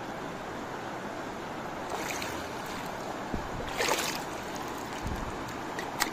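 River water rushing steadily, with a short splash about four seconds in and a sharp click near the end.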